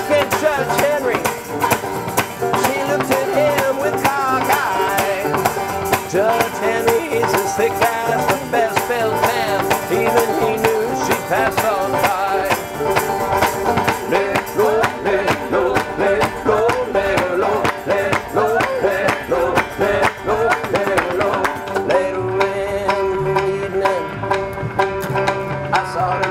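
Acoustic string band playing an instrumental passage: banjos picking over a plucked upright bass, with a steady rattling percussive click beneath.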